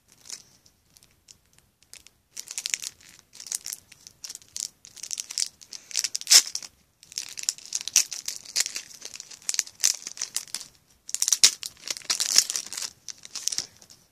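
Shiny foil wrapper of a Match Attax trading-card pack crinkling and being torn open by hand, in repeated bursts of rustling from about two seconds in.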